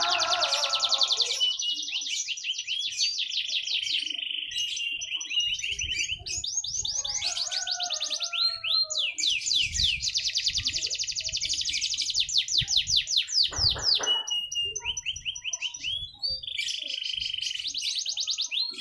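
Canary singing a long song of fast, rapidly repeated trill notes, switching between quick rolls and slower sweeping notes, with short breaks about six seconds in and about sixteen seconds in.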